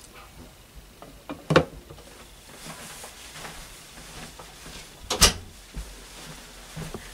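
Two brief knocks from a tablet being handled and set down on its stand, over faint room noise. One comes about one and a half seconds in, and a louder one a little after five seconds.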